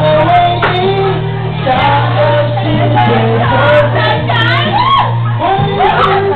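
A man singing a pop song loudly into a karaoke microphone over a recorded backing track with a steady bass line, his voice gliding between sustained notes.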